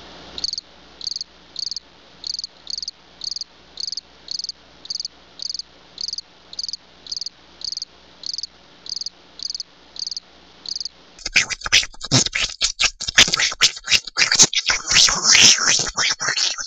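A cricket chirping in short, evenly spaced high chirps, about two a second. About eleven seconds in, a loud, irregular crackling rattle takes over.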